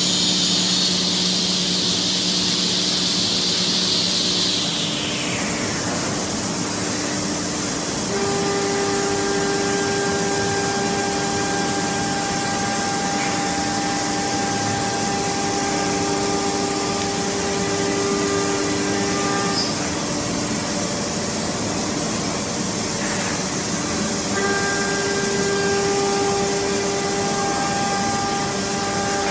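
CNC wood router's spindle running: cutting noise at first, which sweeps down and fades about five seconds in, over a steady hiss. A steady high whine then holds, drops out about twenty seconds in, and returns about four seconds later.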